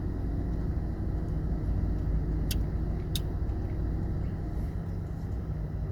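Steady low rumble of an idling car engine, with two faint sharp clicks about two and a half and three seconds in.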